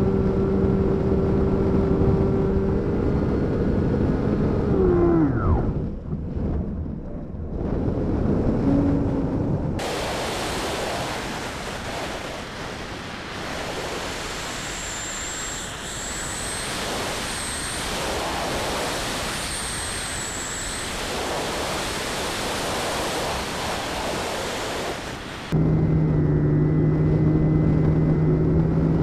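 Propeller motor of a foam FPV flying wing running with a steady hum, then winding down in pitch about five seconds in as the throttle is cut. Wind rushing over the airframe follows. A steady motor hum cuts back in near the end.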